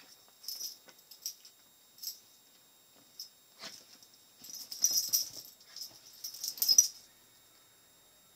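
A dachshund and a kitten play-wrestling on a bed: scuffling on the bedding, the jingle of the dog's metal collar tag and short noises from the dog, in irregular bursts that are loudest about five and seven seconds in, then stop.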